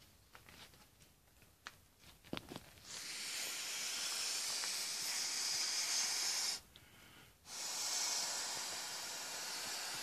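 Air hissing steadily into a vinyl inflatable kangaroo as it is inflated, in two long stretches with a break of about a second between them. Light handling clicks and crinkles of the vinyl come first.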